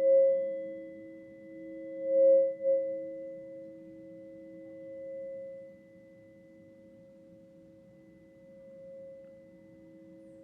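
Tuning forks ringing for sound healing: two pure tones sounding together, swelling loud at the start and again about two seconds in, then slowly dying away.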